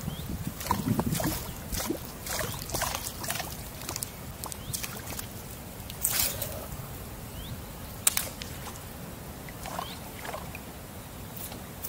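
Water lapping and splashing around an inflatable kayak's hull, with scattered small knocks and clicks; one sharp click about eight seconds in is the loudest sound.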